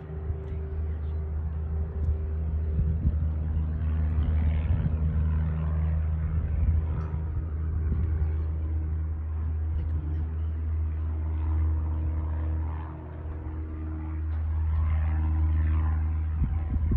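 Piper Cherokee PA-28 single-engine light aircraft's engine and propeller droning steadily in flight, easing briefly about three-quarters of the way through before building again.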